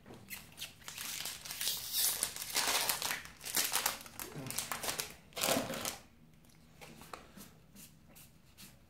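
Foil wrapper of a Magic: The Gathering booster pack crinkling and tearing as it is opened, for about five and a half seconds, then faint flicks of the cards being handled.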